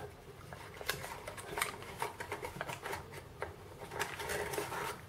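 Packaging being handled: scattered soft clicks, taps and rustles as items are taken out of a box insert, with a longer rustling, scraping stretch about four seconds in.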